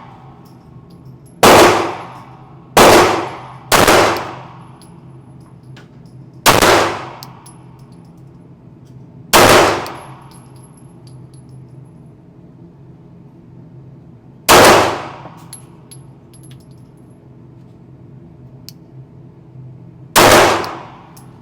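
Glock 17 9mm pistol firing single shots: seven sharp reports, each with a short ringing tail. Three come close together about two to four seconds in, then shots follow at longer, uneven gaps, the last near the end.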